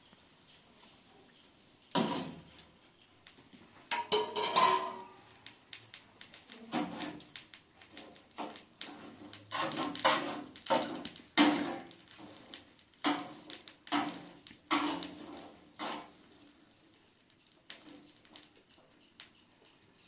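Clatter of dishes and pots being handled: irregular knocks and clinks, some ringing briefly, busiest in the middle and thinning out near the end.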